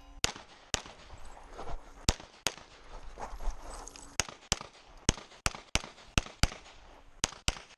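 Semi-automatic pistol shots fired in quick pairs, about a dozen in all, with a pause of a second and a half partway through.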